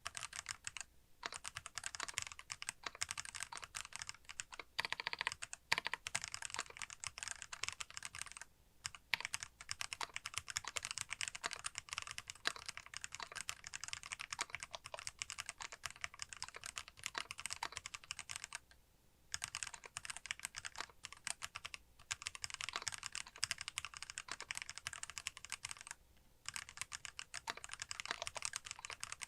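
Fast, continuous typing on a custom mechanical keyboard with lubed Kailh Box Black linear switches and Poron plate and case foam. The keystrokes come in dense runs, broken by short pauses about a second in, near 9 seconds, and at about 19, 22 and 26 seconds.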